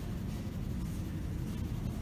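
Steady low rumble of train-platform background noise, with no distinct events.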